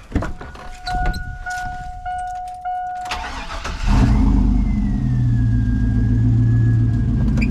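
A car's warning chime beeps steadily several times, then the starter cranks briefly and the engine catches about four seconds in and runs at a steady idle.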